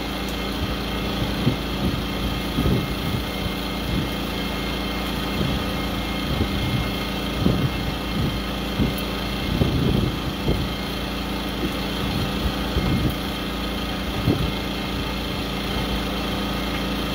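A utensil tossing potato salad in a disposable aluminium foil pan: irregular scrapes and rustles, loudest about halfway through, over a steady engine hum.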